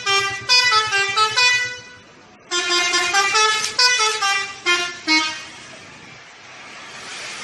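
Bus 'telolet' musical horn playing a quick tune of short notes at changing pitches, in two phrases with a brief pause about two seconds in, stopping just after five seconds. A steady rushing noise follows.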